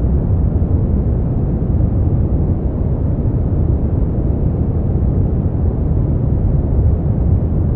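Brown noise: a steady, deep hiss, strongest in the bass and fading toward the treble, with no change in level.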